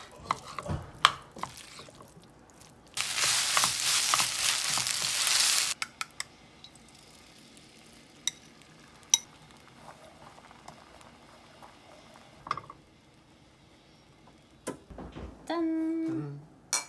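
Wooden spoon scraping and stirring fried rice in a nonstick frying pan, then about three seconds of loud sizzling in the hot pan that cuts off abruptly. A few light clicks of utensils follow.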